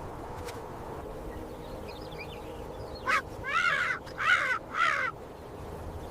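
A corvid cawing: four harsh calls in quick succession, about halfway through.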